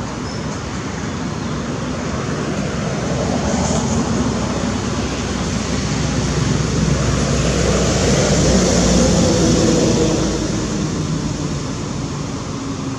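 A motor vehicle passing, its engine and road noise swelling slowly to a peak about eight to ten seconds in, then fading.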